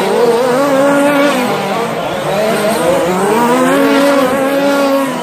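Several RC short-course racing trucks' motors whining, their pitch rising and falling with the throttle as they race.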